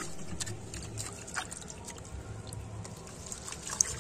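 Fingers working through wet potting soil in a metal pot, with small squelches and crackles and one sharper click near the end, over a steady low background hum.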